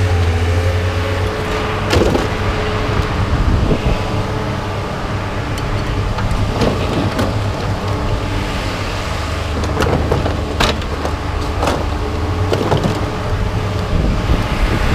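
Vehicle engine idling steadily, with scattered sharp metallic knocks and clanks of scrap metal being unloaded.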